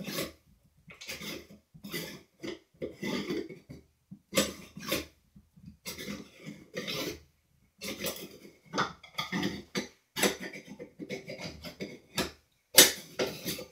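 Irregular clinks, taps and knocks of metal and plastic parts being handled while a Sloan flushometer's diaphragm is replaced and the valve is put back together, with a louder knock near the end.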